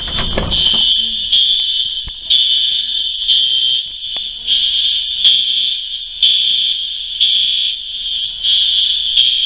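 Apartment building fire alarm sounding a loud, high-pitched electronic tone that pulses about once a second. A brief rustle comes in the first second.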